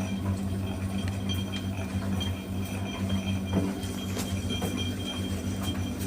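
Proline TD 6 VE Glass tumble dryer running: a steady low motor hum with a faint high whine, and a few light clicks scattered through it.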